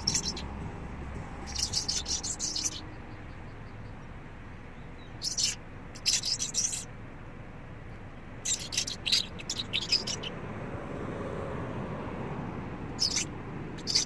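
A person's imitation bird call to attract birds: short clusters of high, chirping squeaks, repeated about five times with pauses between.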